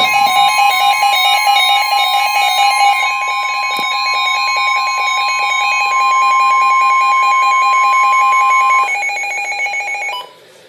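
Emergency alert tones on a NOAA Weather Radio broadcast, announcing a severe thunderstorm warning. A steady high-pitched alarm tone sounds together with a lower, rapidly pulsing beep. The steady tone cuts off about nine seconds in, and the pulsing stops about a second later.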